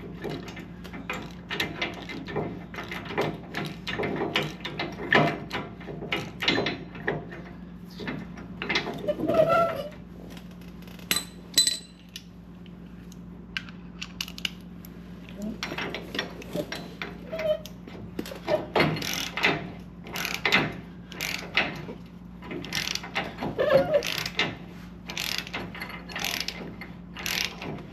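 Hand ratchet wrench clicking in repeated strokes, in bursts with a pause near the middle, as tow-hook bolts are tightened into flag nuts in a truck frame.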